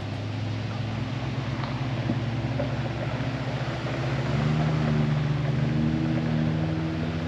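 SUV engine running while driving on a dirt forest road, with road and tyre noise; about four seconds in its pitch steps up as it accelerates.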